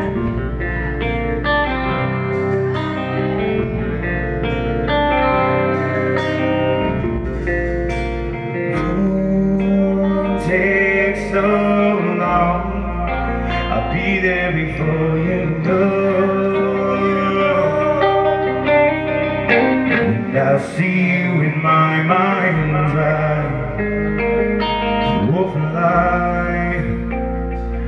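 Live rock band playing: acoustic and electric guitars over bass and drums, with a male singer.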